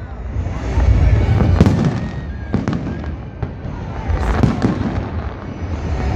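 Aerial fireworks shells bursting one after another: a string of sharp booms roughly a second apart over a continuous low rumble.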